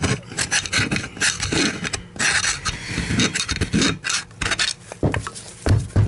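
Repeated scraping strokes, several a second, as caked-on dirt is scraped out of the metal fan housing of a Royal RY4000 upright vacuum. A couple of dull knocks near the end as the housing is handled.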